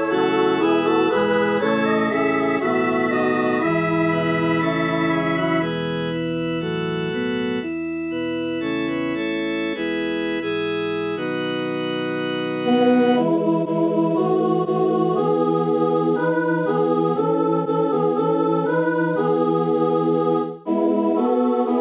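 Computer playback of a choral anthem from a notation file, with all voice parts sounded together in a steady, organ-like synthesized tone: sustained chords moving note by note. About thirteen seconds in, the low parts drop out and the upper parts carry on louder, with a brief break near the end.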